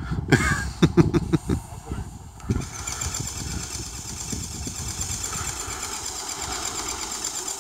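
A few knocks and clunks, then, about two and a half seconds in, a steady motor-like running noise sets in and holds.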